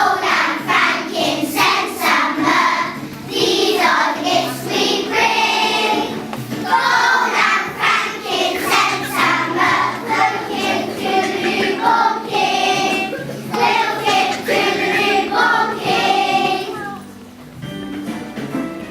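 Music with singing: sung phrases over accompaniment, easing off briefly near the end.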